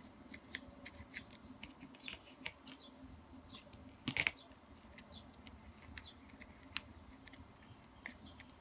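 Faint crinkling and scattered clicks of a gingham ribbon being threaded through a hole in a woven ribbon bag and handled between the fingers, with a louder click about four seconds in.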